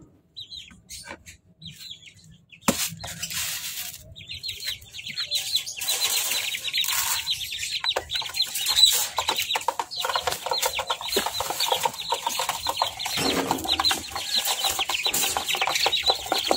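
Caged chickens and chicks calling as they eat freshly poured feed: a dense, constant run of short high peeps starts about four seconds in, with scattered taps.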